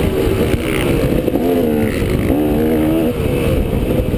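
KTM motocross bike's engine revving under a rider on a dirt track, its pitch climbing, holding and dropping back a few times as the throttle is opened and closed, with heavy wind rumble on the helmet-mounted microphone.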